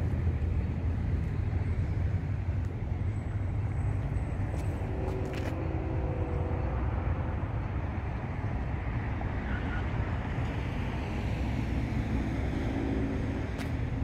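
Distant train horn sounding faintly twice, about five seconds in and again near the end, over a steady rumble of traffic and wind.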